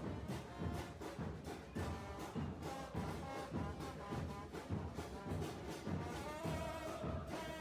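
Music led by brass instruments, with a steady beat.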